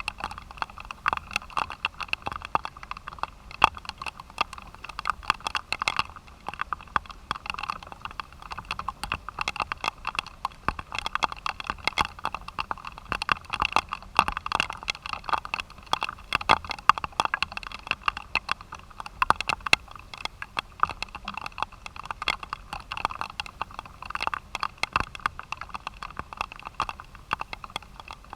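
Rain falling close to the microphone: a dense, irregular patter of drop strikes over a steady hiss.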